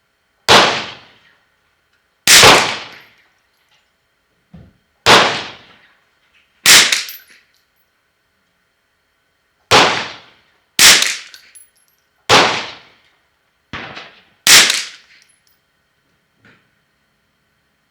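Ruger 10/22-action .22 LR rifle fired eight times in slow semi-automatic succession, about one to three seconds between shots, each a sharp crack with a brief ringing tail.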